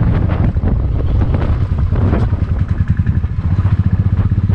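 Motorcycle engine running with a fast, steady low beat as the bike rides slowly, with scattered knocks and rattles from the broken, stony road surface.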